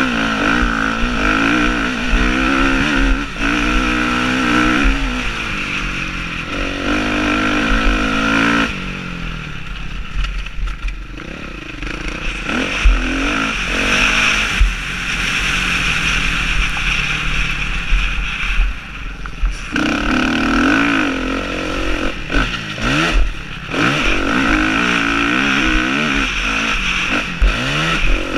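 Motocross bike engine heard from an onboard camera while racing: the engine note climbs and drops repeatedly through the gears, with wind rushing over the microphone. Around ten seconds in it goes quieter and lower for a few seconds before pulling hard again.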